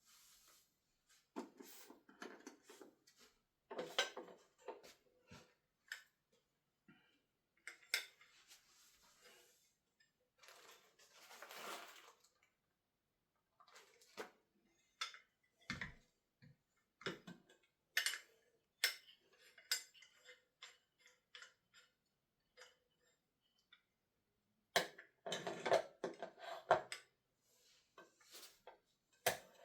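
Parts of a Parkside PDM 600 C3 mini wood lathe being unpacked and handled: irregular clinks and knocks of metal pieces, with brief stretches of rustling packaging, and a busier run of knocks near the end.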